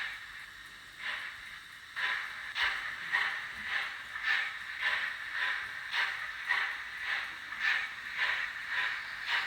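Fleischmann BR 01 N gauge steam locomotive's DCC sound decoder playing steam chuffs through its tiny onboard speaker, at about two chuffs a second. The chuffs grow louder and more regular about two seconds in.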